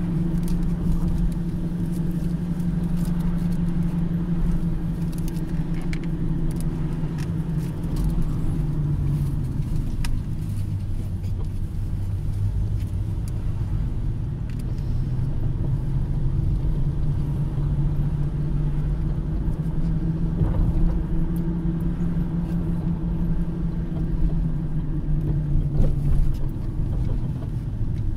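A car driving slowly, heard from inside the cabin: a steady low engine drone with tyre and road noise. The engine note drops in pitch about a third of the way in, rises again past halfway, and drops once more near the end.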